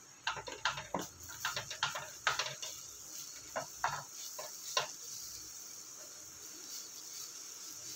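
Wooden spatula stirring grated carrot and ghee in a nonstick frying pan: a run of irregular light scrapes and taps that thins out after about five seconds, over a faint steady sizzle of the carrot frying in the ghee.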